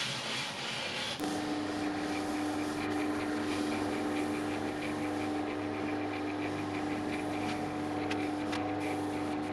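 A cloth rubbing finish into a wooden bowl by hand. About a second in, a wood lathe's motor takes over with a steady hum of unchanging pitch as it spins the bowl against a cloth held to buff the finish.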